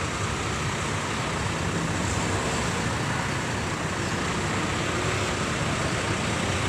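Steady road traffic noise: an even hiss over a low engine rumble, with no single event standing out.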